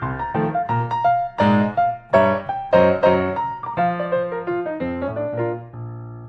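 Background piano music, a quick run of struck notes that ends and fades out near the end.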